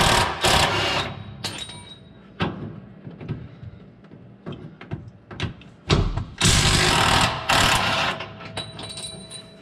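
Cordless impact wrench hammering bolts loose, in two bursts: about a second at the start and a longer one of about two seconds about six seconds in, with light clicks and handling between.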